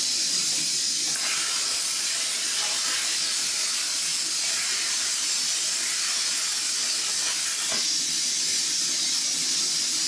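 ArcDroid CNC plasma cutter's torch cutting steel plate: a steady hiss of the plasma arc and its air flow.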